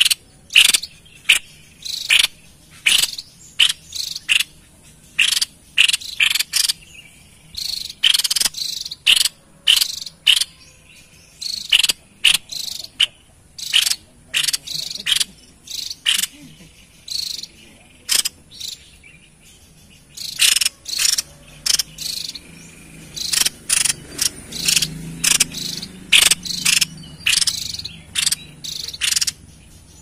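Tepus dada putih babbler calling in a cage: series of short, high, chirping notes repeated in quick clusters, with a brief lull a little past halfway.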